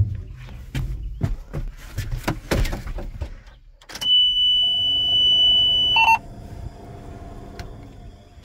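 A run of knocks and clicks as someone gets into a Ford 976 tractor cab, then the dashboard's warning buzzer sounds, loud and steady at one high pitch for about two seconds, and cuts off suddenly. A quieter steady hum follows.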